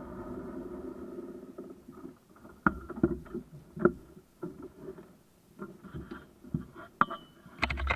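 Rally Skoda Felicia's engine running and then dying away about two seconds in, followed by scattered knocks, clicks and rustles inside the stripped cabin as the occupants move about and handle their helmets. A brief high tone sounds about seven seconds in.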